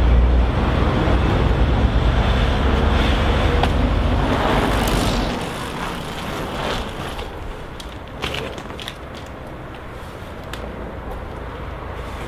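Street traffic, a passing articulated city bus giving a loud low rumble that falls away about five seconds in. Then quieter outdoor ambience with a few light clicks and rattles as a bicycle is wheeled over paving and propped up.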